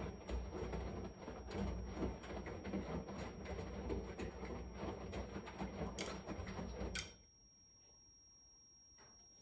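Washing machine running a wash: the drum turns with clothes and water, rumbling and clicking, then stops about seven seconds in and the machine goes quiet for the pause between drum turns.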